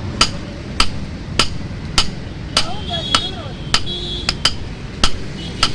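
Blacksmith's hand hammer striking metal on an anvil at a steady working pace, about one blow every half second or so, around ten in all. Some blows leave a short metallic ring.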